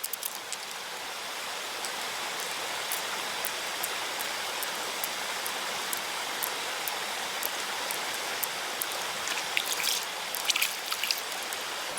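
Steady running water, with faint scattered clicks and a short cluster of sharper clicks near the end.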